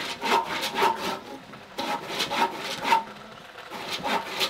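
Handsaw cutting through a wooden plank in quick back-and-forth strokes, about three or four a second, in short runs broken by two brief pauses.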